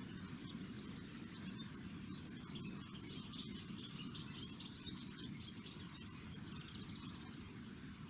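Outdoor ambience: a steady low rumbling noise with faint, irregular high chirping scattered through the middle few seconds.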